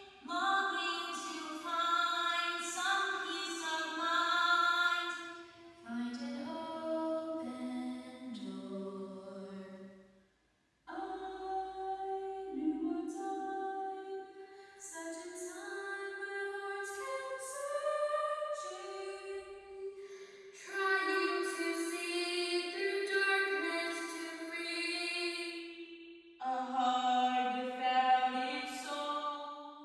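Teenage girls singing a song unaccompanied, one solo voice at a time. The singer changes abruptly every few seconds, with a brief break about ten seconds in.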